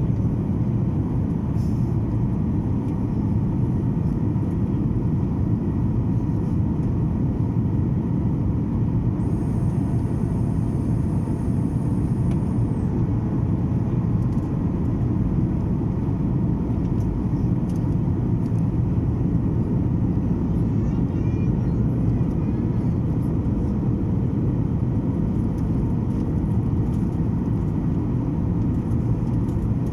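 Boeing 737 airliner in flight, heard from inside the cabin: a steady rumble of engines and airflow with a faint constant hum, unchanging throughout.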